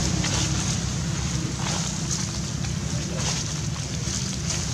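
A steady low rumble with short rustles of dry leaf litter now and then, as a macaque moves through it.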